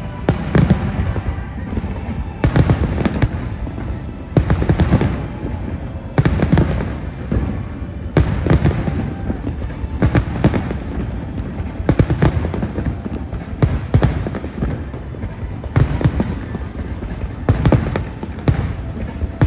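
Fireworks display going off in repeated volleys, a cluster of loud bangs with low rumbling about every two seconds.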